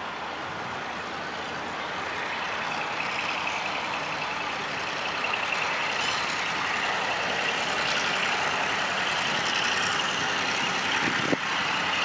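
G22 diesel-electric locomotive hauling a passenger train away from a station, its engine and wheels growing louder as it approaches. A high repeated beeping tone joins in about three seconds in, and there is one sharp knock near the end.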